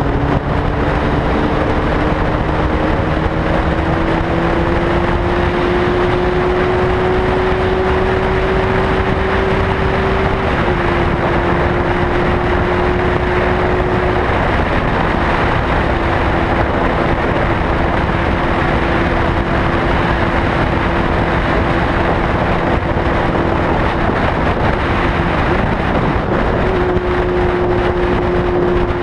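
An engine running steadily under a loud rushing noise, its pitch rising slightly over the first several seconds and then holding.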